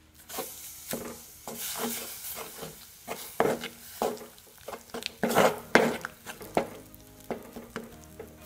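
Spatula stirring and mashing a thick date paste into hot vinegar and spices in a clay pot, in repeated scraping strokes against the pot, loudest around five to six seconds in, over a light sizzle.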